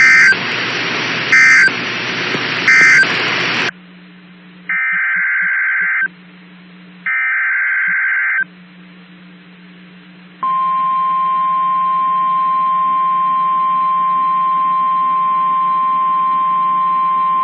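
Emergency alert data tones from a weather radio. Three short end-of-message bursts of shrill two-pitch data sound play over radio static, followed by two longer header bursts of the same data sound. From about ten seconds in comes a steady single-pitch 1050 Hz warning alarm tone, which announces a new warning.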